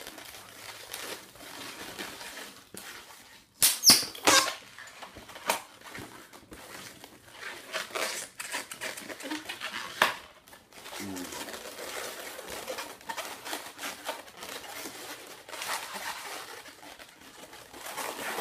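Latex 260 twisting balloons rubbing and squeaking against each other and against hands as they are twisted and pushed together, with a loud cluster of squeaks about four seconds in and another sharp one about ten seconds in.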